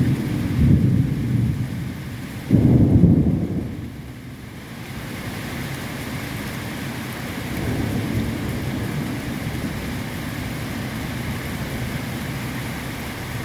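Thunder rumbling low. A louder peal starts suddenly about two and a half seconds in and dies away within a couple of seconds, leaving steady rain falling.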